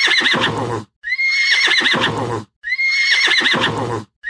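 A horse whinnying, the same neigh repeated about every second and a half: each call starts on a high note and falls away in a quavering shake.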